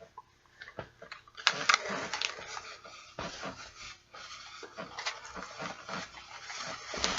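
Irregular rustling and small knocks of a fabric body pillowcase and its packaging being handled and unfolded, busiest from about a second and a half in.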